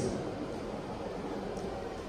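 Room tone of a large hall: a faint, even hiss with a low hum underneath and one faint tick about a second and a half in.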